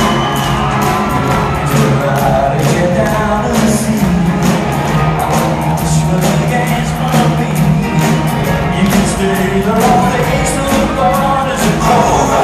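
Live pop-rock band playing through a concert PA, with electric guitars, drums keeping a steady beat, and singing over the top.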